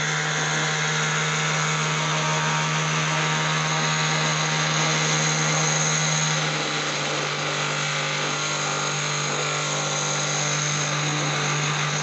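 Small motor and fan of a homemade plastic-bottle vacuum cleaner running steadily: a constant low hum under a loud whirring hiss as it draws air in through the pipe nozzle.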